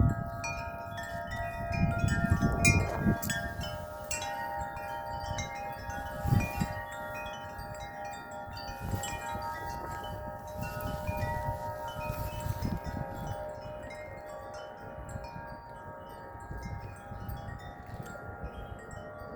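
Tuned metal wind chimes ringing in strong gusty wind: many overlapping, sustained notes struck again and again. Wind gusts rumble on the microphone, loudest about two to three seconds in and again around six seconds.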